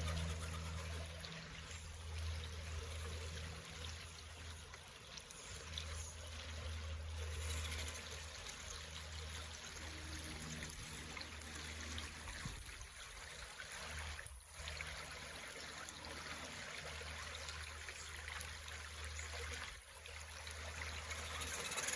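Steady running water, like a small stream, with a low hum coming and going underneath.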